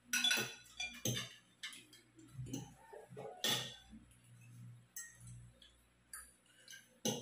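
Forks clinking and scraping against plates as people eat noodles: scattered, irregular light clinks, the sharpest about a quarter-second in, about three and a half seconds in, and near the end.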